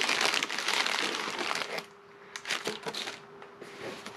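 Plastic packaging bag crinkling and rustling as it is pulled off a new mixer in its carton. It is loudest and continuous for about the first two seconds, then comes in a few short rustles.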